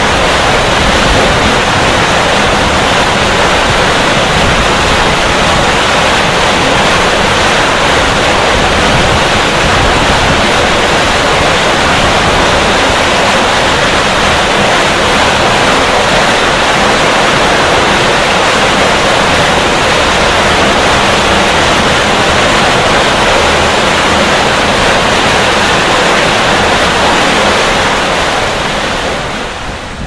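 Water released through the opened spillway of the Imatra hydroelectric dam, rushing down the concrete chute into the Vuoksi rapids with a loud, steady roar. The sound dips in level near the end.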